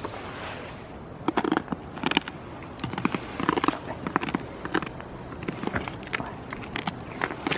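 Goats biting and crunching treats taken from a hand: irregular bursts of sharp crunching clicks.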